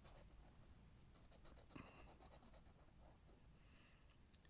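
Faint scratching of a colouring medium rubbed in quick repeated strokes across a colouring-book page.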